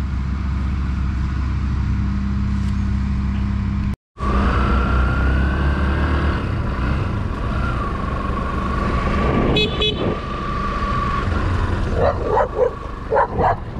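Vehicle driving along a dirt highway, with steady low engine and road rumble. The sound cuts out for an instant about four seconds in, a steady high tone runs through the middle, and a few short sharp calls come near the end.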